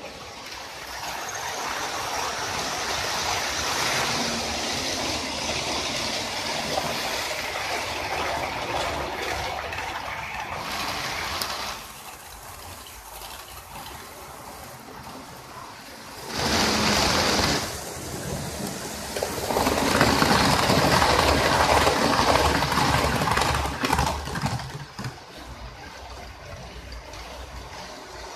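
Electric model trains running on the layout's track: a steady motor whirr with wheels rattling over the rails, swelling as a train passes close, with a short loud pass about two-thirds of the way through and a longer one soon after.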